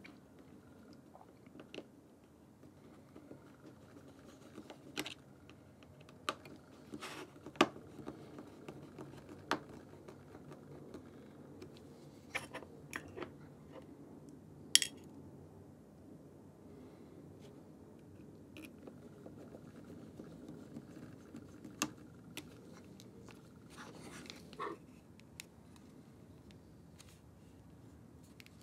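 Small plastic and metal parts of a camera's LCD screen assembly and a precision screwdriver being handled on a tabletop: scattered sharp clicks and taps, a couple much louder than the rest, over faint room tone.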